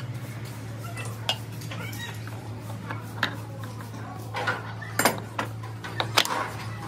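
Metal gearbox parts clinking and knocking as they are handled and fitted inside a Hino FM1J truck gearbox housing: scattered light clicks, with sharper metallic knocks about five and six seconds in, over a steady low hum.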